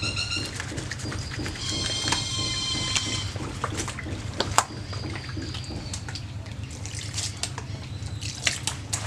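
Wet cloth being pressed and worked by hand in a basin of soapy water, with scattered drips and small splashes, and water scooped and poured with a gourd near the end. A steady low hum runs underneath, and a high whistling tone of unclear source sounds for about a second and a half about two seconds in.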